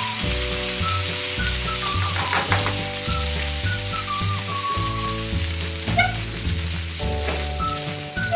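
Washed rice sizzling in hot olive oil in a frying pan, a steady hiss of frying.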